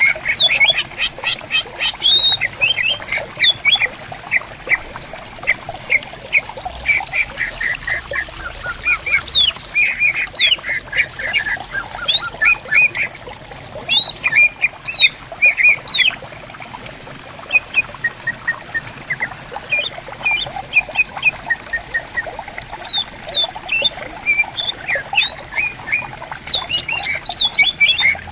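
Greater green leafbird (cucak ijo) singing: busy runs of rapid chattering chirps and short whistled glides, thinning out briefly about two-thirds of the way through. A clear stream trickles steadily underneath.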